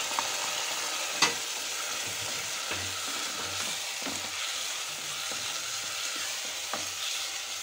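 Baked beans, onion and capsicum sizzling in butter in a pot while a spoon stirs them, with a sharp knock about a second in and another near the end.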